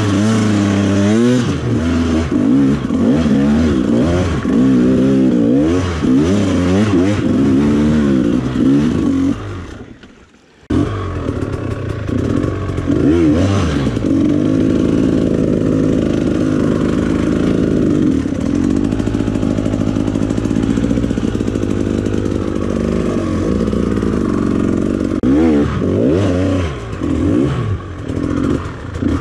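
Off-road dirt bike engine revving up and down over and over as it is ridden hard, with some clatter. The sound drops away for about a second roughly ten seconds in, then comes back abruptly.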